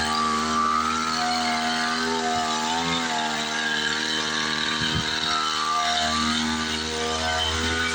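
Small engine of a power sprayer running steadily, its pitch wavering slightly up and down, while the goats and sheep are sprayed against fleas and lice.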